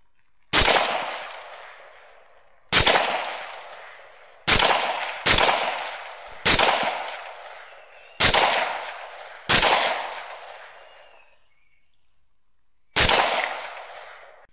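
Eight rifle shots, some spaced a couple of seconds apart and two less than a second apart. Each is a sharp crack followed by a long fading echo.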